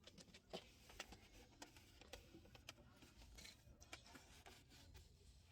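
Near silence with faint rubbing strokes and light ticks: a microfiber towel wiping over the motorcycle's bodywork.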